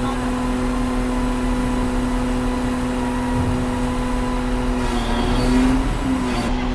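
Diesel engine of heavy construction machinery running at a steady speed with a constant hum, its pitch wavering slightly near the end.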